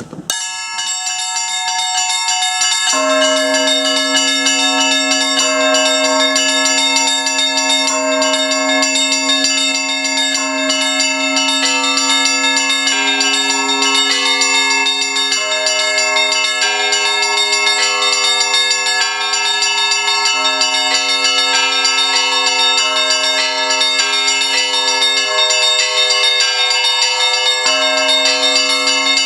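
Orthodox church bells ringing in a continuous peal, several bells sounding together. A deeper bell joins about three seconds in.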